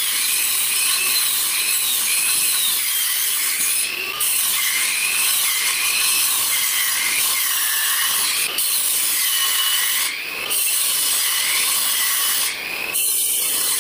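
Table saw cutting a plywood panel: a steady whine whose pitch wavers up and down as the blade is loaded, with short dips in loudness about 4, 10 and 12.5 seconds in.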